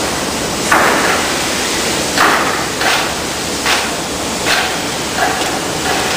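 A steady rushing noise with a run of about seven sharp knocks, one every second or less.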